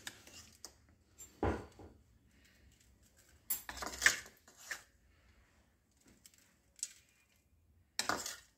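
Steel spoon clinking and scraping against a steel plate and bowl in about six short clatters with quiet gaps between, as spice powder is spooned over boiled sweet potato cubes.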